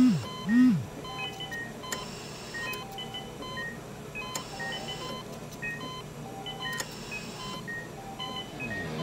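Two low tones that rise and fall in pitch, one right at the start and one about half a second later, and they are the loudest sounds here. They are followed by short electronic beeps at several pitches, coming in irregular runs.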